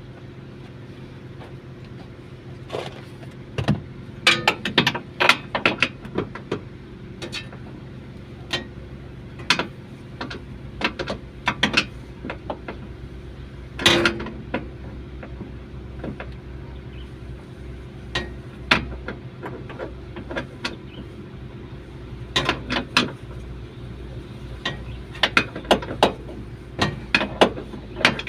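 Irregular clicks, taps and knocks of hand tools and parts being handled while truck dashboard wiring is repaired, over a steady low hum.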